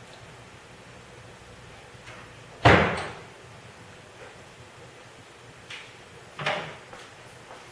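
Two sharp slams, a loud one about two and a half seconds in and a second one near the end, each with a short ringing tail, plus a light click just before the second.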